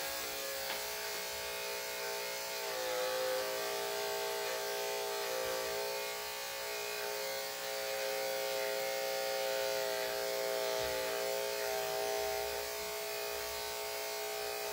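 Corded electric dog clippers running with a steady buzz as they trim the hair on a dog's paw; the pitch dips briefly about three seconds in.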